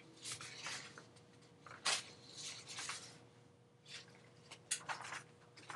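Faint scattered rustles and clicks of handling noise near the microphone, the most distinct one about two seconds in and another near the end, over a faint steady hum.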